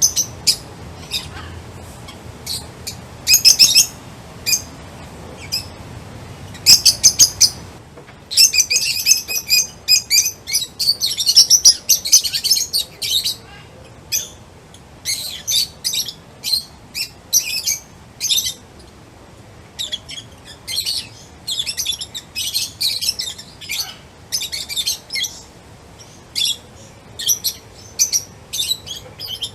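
Songbirds chirping: many short, high-pitched chirps and tweets in quick clusters, sparse for the first several seconds and then dense and overlapping through the middle.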